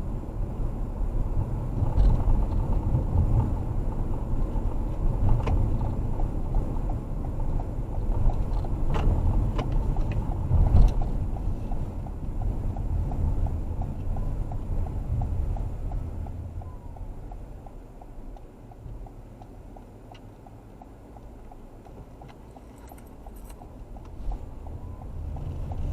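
Car cabin road and engine noise while driving. It quietens about two-thirds of the way in as the car slows to a stop and waits, and a turn signal relay ticks steadily through the second half.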